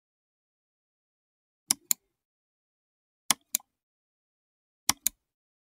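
Three pairs of sharp clicks, each pair a quick double click, evenly spaced about a second and a half apart over dead silence.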